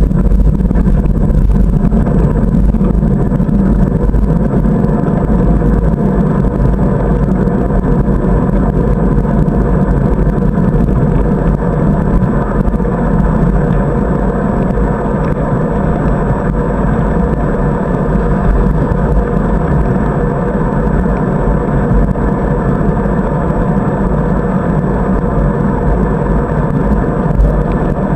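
Steady, muffled rumble of wind and tyre-on-asphalt vibration picked up by a camera mounted on a moving bicycle, unchanging throughout.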